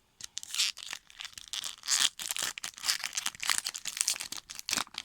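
Crinkling and tearing of a hockey card pack's wrapper being handled and opened, an irregular crackle.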